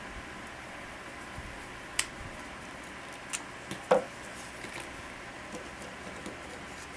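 Scattered light clicks and knocks from handling the rifle's parts and tools, a few in all, the loudest about four seconds in, over a faint steady hiss.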